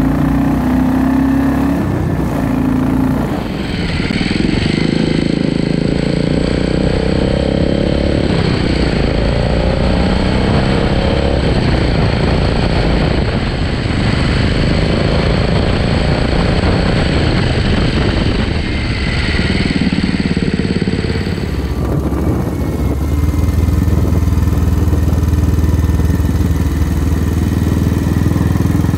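Royal Enfield Classic 500 single-cylinder engine, fitted with a 535cc big-bore kit and aftermarket exhaust, running at low speed on the move. The revs rise a few seconds in and again later as the bike picks up speed.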